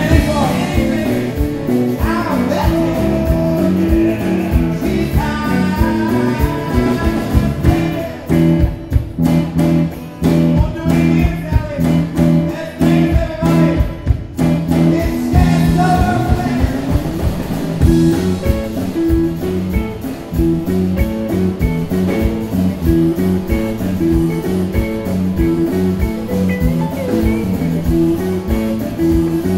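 A live rock-and-roll band playing: acoustic and electric guitars, bass and drums, with singing. About eight seconds in, the band breaks into short stabs with gaps between them for several seconds, then returns to a steady groove.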